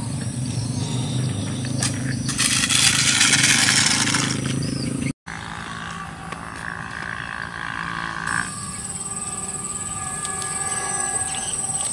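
The small electric motors of a micro twin-engine RC plane whine in flight, with a loud rush of noise about two to four seconds in and a brief dropout about five seconds in. From about eight seconds in, insects chirp steadily.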